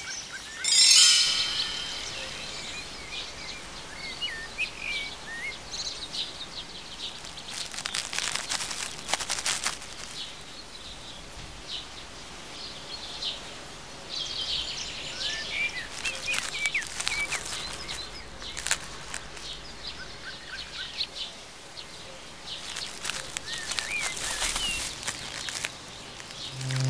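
Birdsong ambience: scattered chirps and twitters from small birds over a faint steady outdoor hiss. A brief bright ringing sound comes about a second in.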